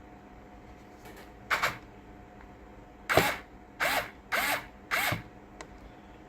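Fanttik S1 Pro cordless electric screwdriver's motor run in five short bursts, each a brief whir that rises and then falls in pitch as it spins up and stops.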